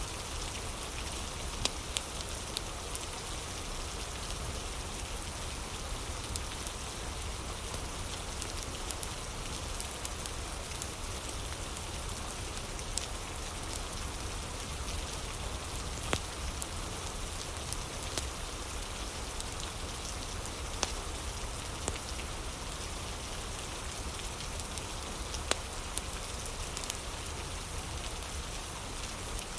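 Steady rain, an even hiss with scattered sharp clicks and a low rumble underneath.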